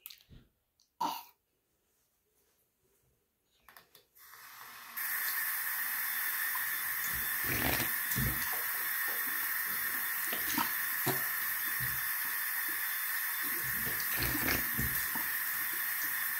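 A bathroom tap is turned on about four seconds in and runs steadily into the sink, with several splashes and spits as the mouth is rinsed out from cupped hands after toothbrushing. A brief knock comes about a second in.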